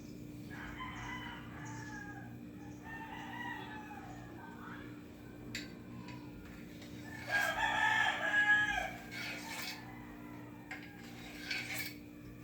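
Roosters crowing: a couple of fainter crows early on, then a louder, longer crow about seven seconds in.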